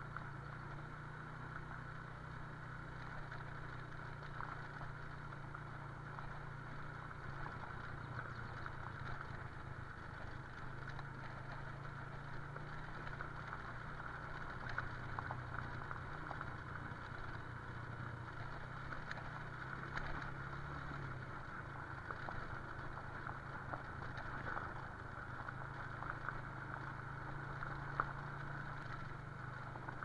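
Motorcycle engine running steadily at low road speed, its low hum stepping slightly up and down with the throttle, with scattered faint ticks over it.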